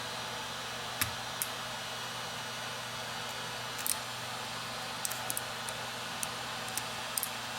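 Scattered light clicks and taps of small repair tools and parts as an iPad is worked on, over a steady hum and hiss.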